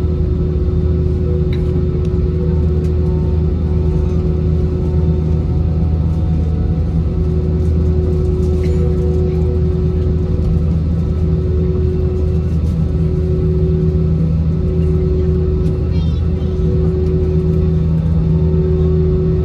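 Inside the cabin of an Airbus A320 taxiing, heard from a seat over the wing: a steady low rumble of its CFM56 engines and the airframe, with a steady hum over it.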